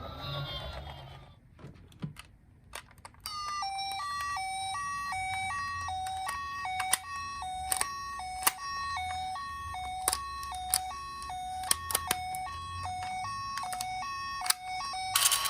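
Toy ambulance minicar's electronic two-tone 'pipo-pipo' siren, starting about three seconds in after a quiet stretch and steadily alternating between a higher and a lower tone. Sharp clicks now and then, and a short burst of noise near the end.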